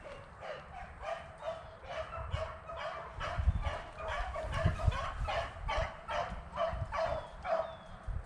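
Beagles baying as they run a rabbit's track, short pitched bays coming about two a second, with a few low thuds underneath around the middle.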